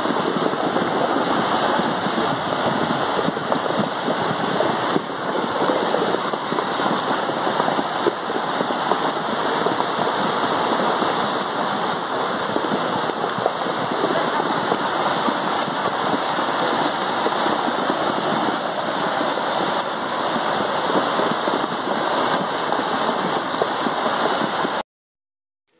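Heavy rain, a dense steady hiss that cuts off suddenly about a second before the end.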